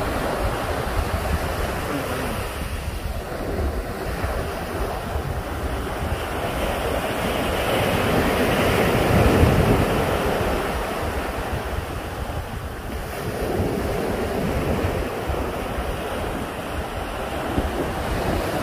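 Sea surf washing onto a beach, the waves breaking and swelling in and out, with wind rumbling on the microphone. The wash is loudest about nine seconds in.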